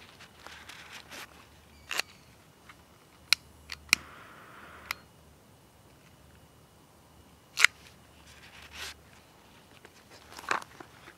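Small camp gear being handled: a series of sharp clicks and light knocks, the loudest about two-thirds of the way in, among soft rustling of a fabric pouch and dry pine needles.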